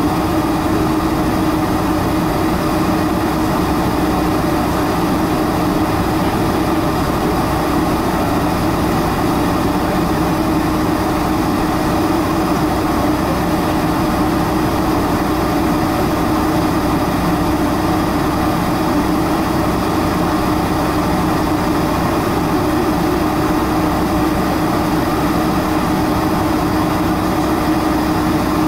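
Boeing 747-400 jet engines at idle thrust during taxi, heard from inside the cabin: a steady rushing hum with one held low tone.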